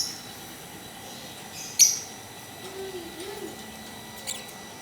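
Lovebird giving short, shrill chirps: one at the start, a loud one about two seconds in, and a fainter one near the end.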